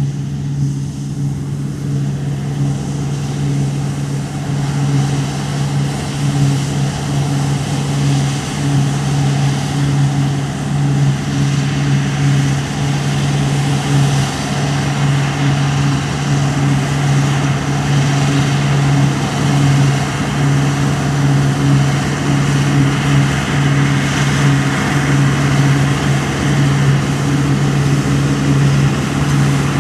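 Diesel engine of heavy harvest machinery running steadily under load, a deep even hum with a broad hiss that grows louder about a third of the way in.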